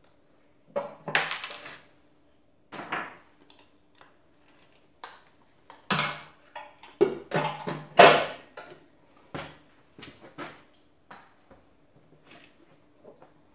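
Loose pushrods and metal parts of a homemade five-cylinder radial engine clinking and clattering against each other as the engine is taken apart and handled, in irregular bursts, loudest about a second in and again around eight seconds in.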